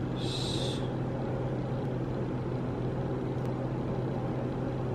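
A steady machine hum with a strong low drone, and a short hiss about a quarter of a second in.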